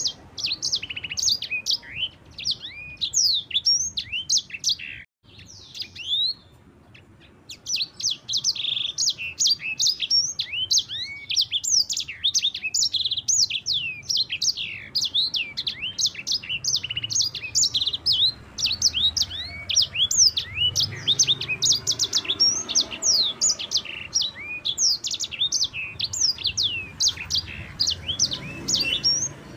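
Yellow-fronted canary (sanger) singing a fast, rolling song of rapid chirps and sweeping notes. The song breaks off about five seconds in and resumes a couple of seconds later.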